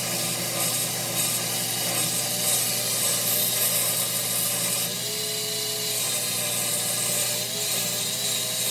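A power tool in a knife-making shop running steadily, with a constant hum and a whine that wavers up and down in pitch.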